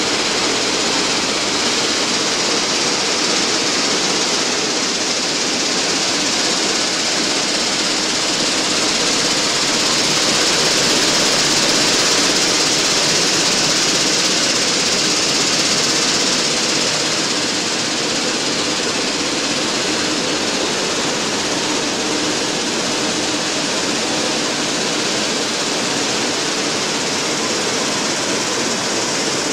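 Foxnut dehulling and separating machine line running: vibrating screens, a spiral vibrating elevator and husking units make a steady, loud hiss of machinery over a faint hum.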